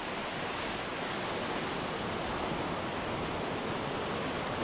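Sea surf washing against a coral reef shore, a steady rushing noise with no distinct breaking waves.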